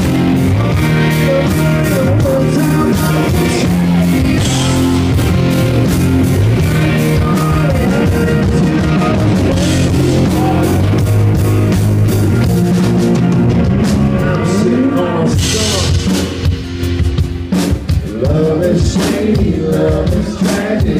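Live rock band playing loud, with electric guitars, bass and a drum kit. About fifteen seconds in, the full band thins out to sparser, uneven playing.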